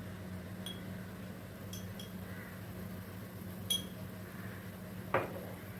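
Light clinks of a metal spoon against spice containers and the pan as spice powders are added, over a steady low hum; a sharper knock with a short ring comes near the end.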